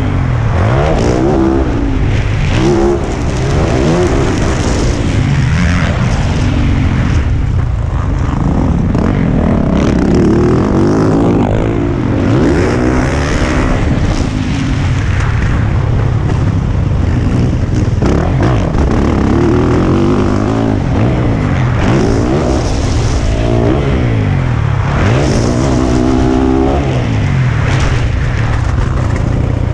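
2020 Yamaha YZ450F's single-cylinder four-stroke engine, heard close up on the bike as it is ridden, revving up and dropping back over and over, its pitch rising and falling every second or two.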